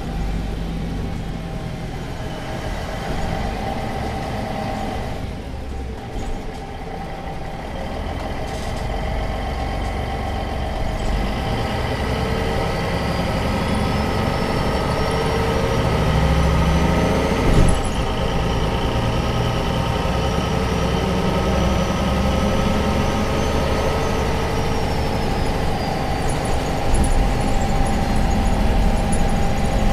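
MAN NG 263 articulated bus under way, its D2866 six-cylinder diesel engine running with a low rumble that slowly grows louder. A high whine climbs for several seconds and then holds. A sharp knock comes a little past halfway, and the whine falls away a few seconds before the end.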